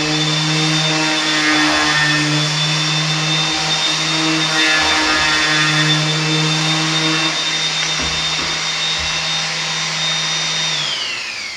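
Electric palm sander running steadily with a hum and a high whine as it sands the finish on a hand-scraped hardwood floor. Near the end it is switched off and its pitch falls as it winds down.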